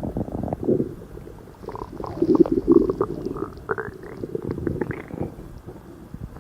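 A person's stomach growling: irregular gurgling rumbles with a few short rising squeaks, loudest about two and a half seconds in.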